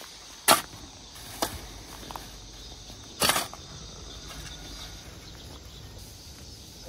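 A long-handled farm tool's metal blade chopping into and scraping soil. There are two sharp strikes about half a second and a second and a half in, and a longer scrape a little past the middle, over a steady faint high hiss.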